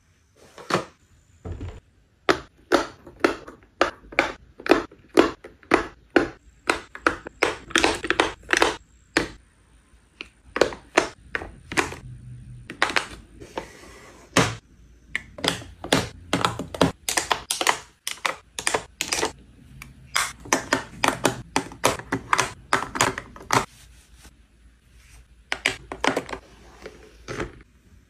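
Quick, uneven clicks and taps as lip-gloss bottles and cosmetic tubes are set down one after another into a gold-framed glass organiser and onto a tray, about two or three a second.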